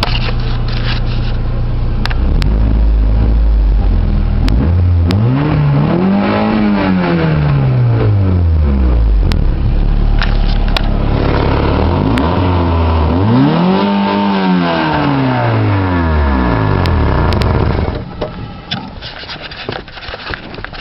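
1991 Honda Accord EX's 2.2-litre four-cylinder engine idling, then revved up and let fall back to idle twice, its exhaust leaking: stock-sounding at idle, racy up high. The sound drops off sharply near the end.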